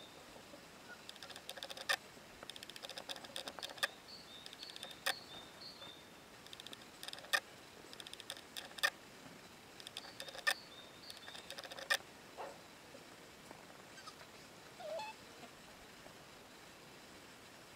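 Faint outdoor ambience with small birds chirping, broken by sharp clicks every second or two and short bursts of rapid clicking; a brief rising call comes about fifteen seconds in.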